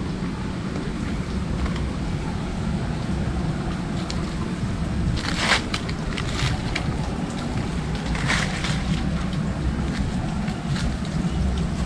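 Dry leaves and undergrowth crackling as someone walks through it, a few short crackles with the loudest about five and a half seconds in and another about eight seconds in, over a steady low rumble.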